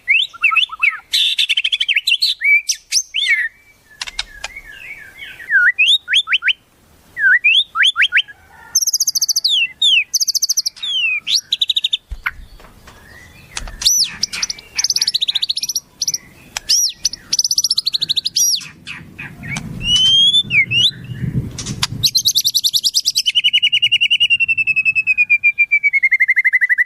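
Wild songbird calls: a varied run of sharp whistles, chirps and rising and falling notes. Near the end comes a long, fast trill that slides steadily down in pitch.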